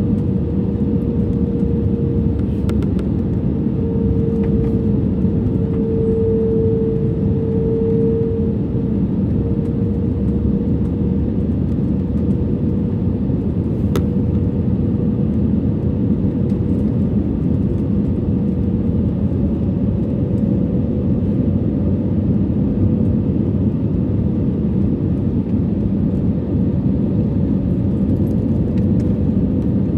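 Steady cabin noise inside an Airbus A320 on final approach with flaps extended: a loud, even drone of engines and rushing air, with a hum that shifts slightly in pitch about two-thirds of the way through.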